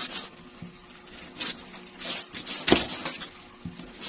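Serrated kitchen knife slicing through peeled taro root and knocking on a plastic cutting board: about half a dozen separate cuts, the loudest about two and a half seconds in.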